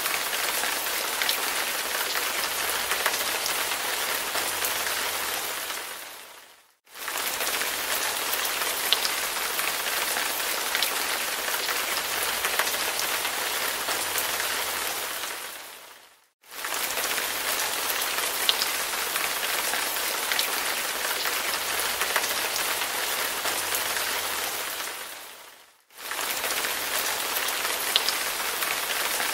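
Rain falling: a steady hiss of rainfall with scattered drop ticks. It fades away to silence and cuts back in three times, about every nine and a half seconds.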